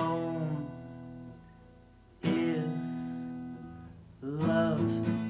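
Acoustic guitar strumming: three chords, each struck and left to ring out and fade before the next, about two seconds apart.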